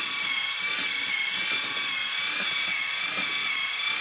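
Small battery-powered DC gearmotor in a 3D-printed walking toy robot running, giving a steady high whine that wavers slightly in pitch as the robot walks.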